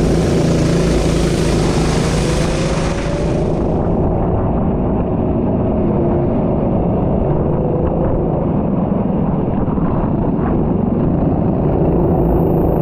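Race car engine running at speed, a loud continuous rumble with revs that rise and fall. A hiss that reaches high up lasts through the first few seconds and then drops away.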